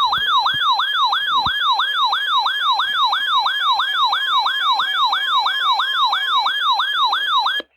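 Weather-alert radio's electronic siren alarm: a loud tone warbling rapidly up and down about three times a second, cutting off suddenly near the end. It signals that a new warning is being broadcast.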